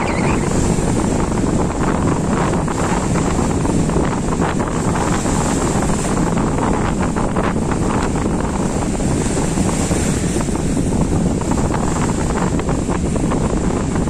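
Sea surf breaking and washing up a sandy beach, with strong wind buffeting the microphone in a steady loud rumble.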